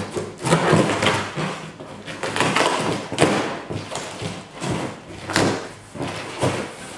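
Knife slitting the packing tape on a cardboard box, then the cardboard flaps being pulled open: a run of scraping and rustling strokes with a few sharp knocks, the sharpest about three and five and a half seconds in.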